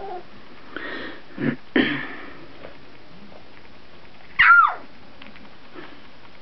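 Two-week-old Brittany puppies: a couple of short breathy huffs about a second and a half in, then one puppy gives a single short, high bark that falls in pitch, about four and a half seconds in.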